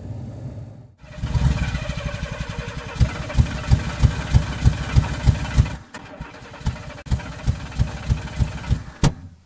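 An engine running with a loping, pulsing beat, about three strong pulses a second, that cuts off suddenly at the end.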